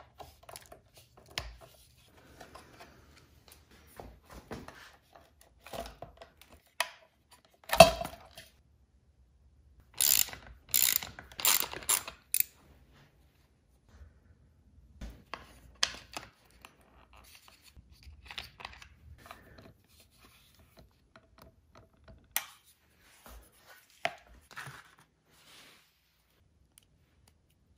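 Scattered clicks and clinks of hand tools on a motorcycle's front end, a screwdriver and a ratchet with a 10 mm socket working the headlight-mount bolts, and of small metal bracket parts being handled. A sharp knock comes about eight seconds in, and a run of loud ratcheting clicks a little after ten seconds.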